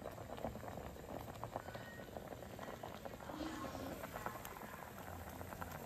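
A pot of shabu-shabu broth boiling hard, a steady dense patter of small bubbling pops.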